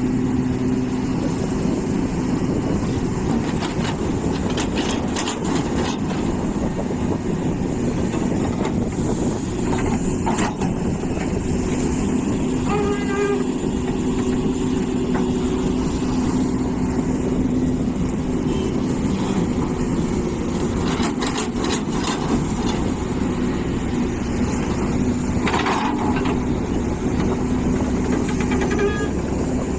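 Hitachi EX450 excavator's diesel engine running steadily under working load, with occasional knocks and scrapes scattered through the sound.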